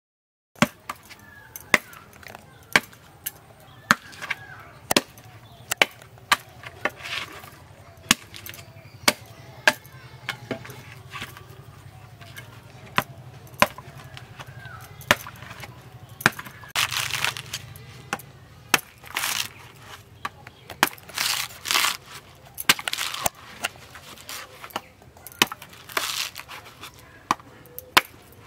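Large curved knife chopping into the husk of a dry coconut in sharp single blows, about one a second at first. In the second half the blows are mixed with longer tearing bursts as the fibrous husk is split and pulled away.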